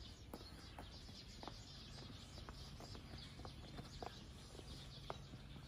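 Faint outdoor ambience with light, irregular taps about twice a second, footsteps on a stone-paved path.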